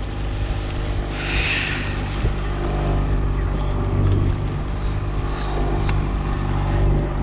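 Fishing boat's engine running steadily with a low, even hum, and a brief hiss about a second in.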